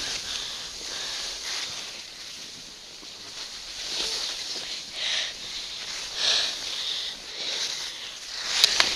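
Snow hissing under a downhill rider sliding through soft powder, swelling in surges with each turn. Two sharp clicks near the end.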